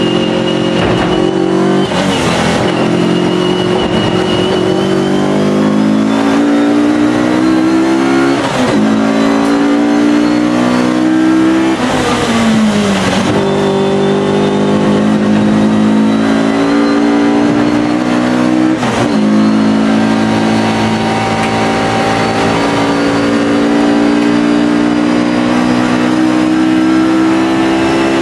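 Alfa Romeo racing car engine under hard acceleration. Its pitch climbs through the revs and breaks off at a gear change every few seconds, with a longer drop and climb back up about halfway through as the car slows and picks up again.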